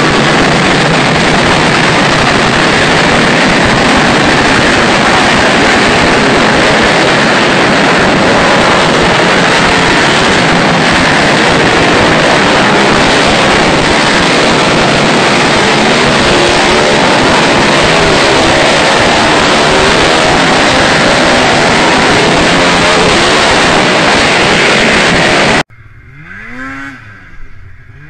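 A large pack of racing ATV quad engines running flat out together at a mass start: a dense, loud, unbroken wall of engine noise. Near the end it cuts off suddenly, and a single snowmobile engine revs up and back down.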